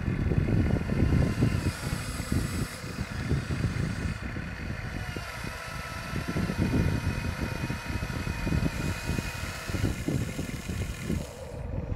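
Small electric motors of a toy RC excavator whining faintly as it digs and lifts its boom and bucket, under a loud, uneven low rumble of wind buffeting the microphone.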